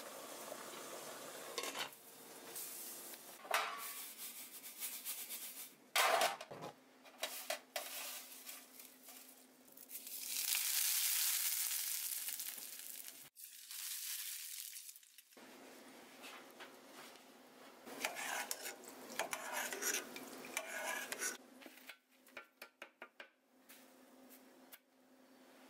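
Kitchen work: clinks and knocks of a stainless steel steamer pot and metal utensils, and a steady sizzle of finely chopped pieces frying in a pan of oil. The sound drops out for a moment partway through, then comes back with more sizzling and clinking, and ends with a quick run of light taps.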